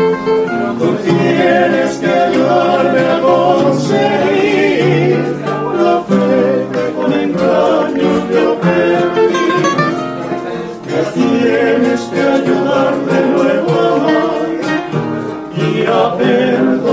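Trio of nylon-string acoustic guitars plucking and strumming a bolero accompaniment while a man sings the melody with vibrato.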